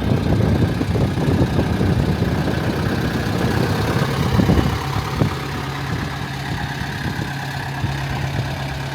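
Camper van engine running: rough and uneven for the first few seconds, then settling into a steady low hum from about five seconds in.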